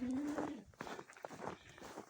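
A goat's short steady bleat that ends about half a second in, followed by scattered footsteps and light knocks on the barn floor.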